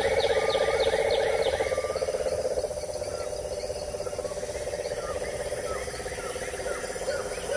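Wild animal chorus: rapid short chirping calls, about three or four a second, over a steady low pulsing trill. It grows quieter about two and a half seconds in, with fainter chirps carrying on.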